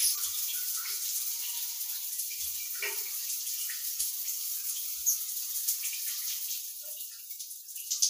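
Shower running: a steady hiss of spray with scattered small splashes and drips, easing off near the end.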